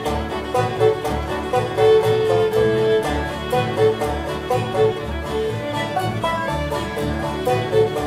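Old-time string band playing a fiddle tune: the fiddle carries the melody over banjo, acoustic guitar and upright bass, with a steady, even beat from the bass and strummed strings.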